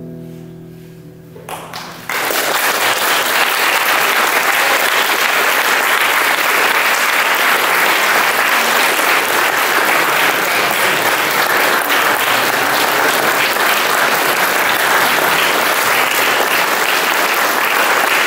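A classical guitar's final chord rings and fades. About two seconds in, audience applause starts and holds steady.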